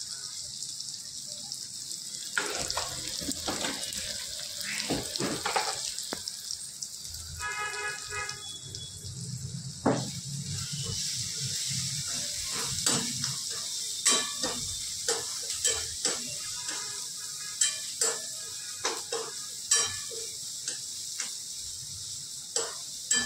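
Vegetables and spice paste frying in a wok with a steady sizzle. In the second half, a metal ladle stirs and scrapes against the pan roughly once a second.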